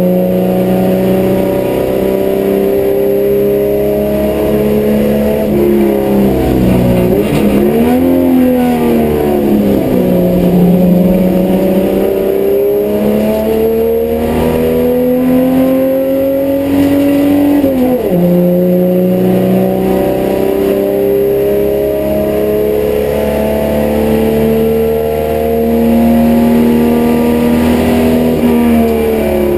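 HQ Holden race car's six-cylinder engine heard from inside the cabin under racing load, its note climbing slowly in pitch through each long stretch. It drops sharply and picks up again about a quarter of the way in and again just past halfway, as the driver lifts off and changes gear for corners.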